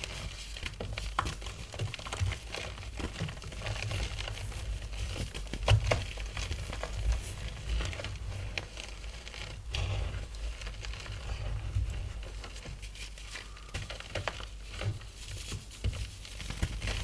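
Blocks of gym chalk being crushed and crumbled by hand, an irregular run of crunchy crackles with scattered sharper snaps.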